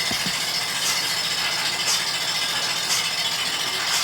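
Milking machine running on a cow: a steady vacuum hiss with the pulsator's soft rhythmic pulse about once a second.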